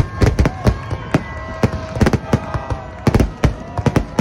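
A fireworks display, with aerial shells and mortars bursting in a rapid string of sharp bangs, about four or five a second.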